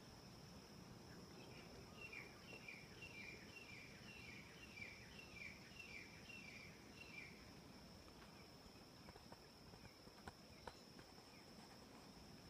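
A small animal giving a series of about a dozen short falling chirps, a little over two a second, which then stops, over a faint steady high insect drone. Two faint clicks come near the end.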